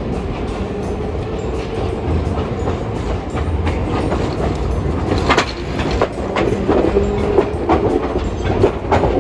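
Hiroshima Electric Railway Green Mover low-floor articulated tram rolling past over the junction's points and rail joints. A steady low rumble gives way, about five seconds in, to a run of wheel clicks and clacks as the cars pass, with a hum from the tram's motors.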